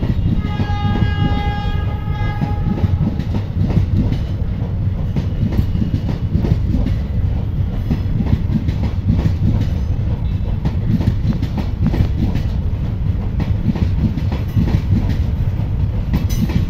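Blue ICF passenger coaches of an Indian Railways train rolling past at speed: a steady low rumble with the wheels clattering over rail joints. About half a second in, a train horn sounds one steady note for about two and a half seconds.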